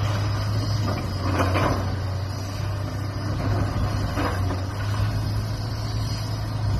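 Diesel engine of a bulldozer on a demolition job, running with a steady low hum, with a couple of short scraping knocks as it works.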